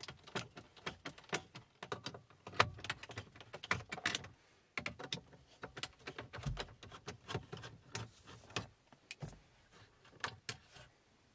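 Irregular small clicks, ticks and taps of hand work at a car dashboard: a Torx screwdriver backing out the screws that hold the factory infotainment screen, with the screen and its plastic surround being handled, and a few soft thumps.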